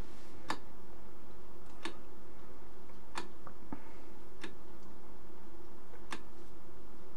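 Rotary decade switch of a General Radio 1433-B decade resistor being turned one position at a time through its 10-ohm steps: five sharp detent clicks, about one every second and a quarter. Each click is one resistance step.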